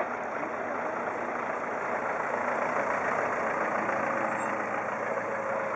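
Engine and tyre noise of a fire brigade command van driving up and passing close by, a steady rumble that swells slightly midway.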